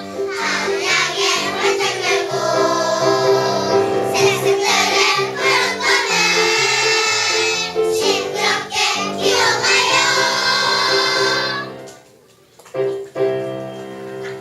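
Children's choir singing a song with accompaniment. The voices stop near the end, leaving a few piano notes.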